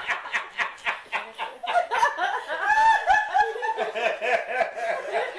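Laughter after a joke's punchline: a quick run of repeated 'ha-ha' pulses that grows louder about halfway through.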